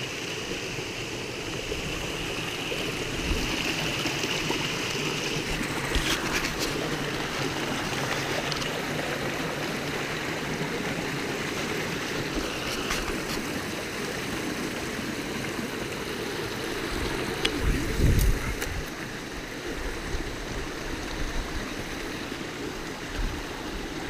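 Creek water rushing steadily at the foot of a waterfall running high after heavy rains. A brief low thump comes about eighteen seconds in.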